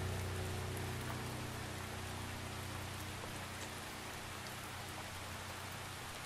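Steady rain falling, an even hiss across the whole sound. Under it, a low held hum fades out over the first two or three seconds.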